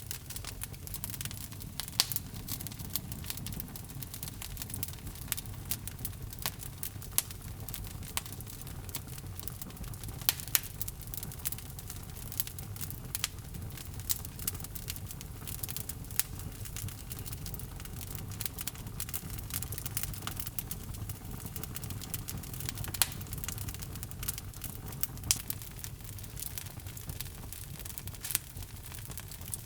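Log fire burning in a fireplace: a steady low rumble under constant crackling, with a few louder pops.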